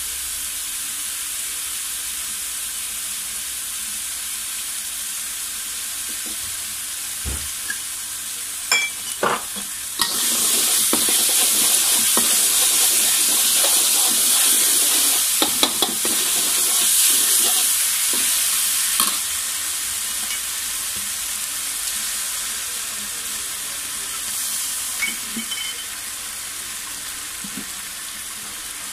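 Chopped garlic and chili sizzling in hot oil in a wok, with a spatula scraping and tapping against the pan now and then. The sizzle grows louder about ten seconds in and eases back again a little before halfway.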